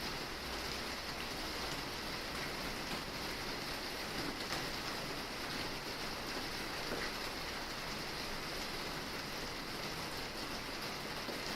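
Steady rain falling on a roof: an even hiss of many drops with a few faint individual ticks.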